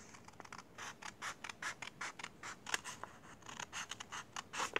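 Scissors trimming the edge of a sheet of painted paper: a quick run of short snips, about four a second, starting about half a second in.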